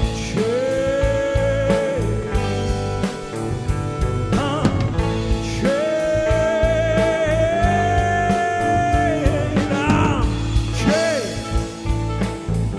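A band playing a song, the singer holding two long notes over the backing, the second longer and rising slightly near its end.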